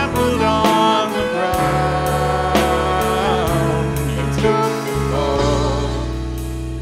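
A Christian worship song: a voice singing a melody over instrumental accompaniment with held bass notes and a steady beat of about two strokes a second.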